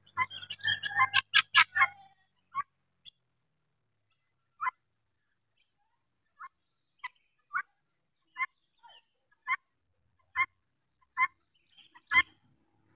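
Helmeted guineafowl flock calling: a quick flurry of overlapping short calls at first, then single short calls, sparse at first and about one a second toward the end.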